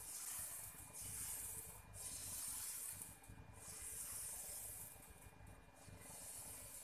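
Thin maida-and-egg batter sizzling faintly on a hot, oiled dosa griddle as a ladle spreads it in circles. The hiss swells and fades about four times.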